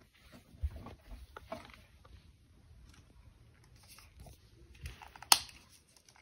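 Light clicks and taps of small plastic toy figures being handled, with one sharp click about five seconds in.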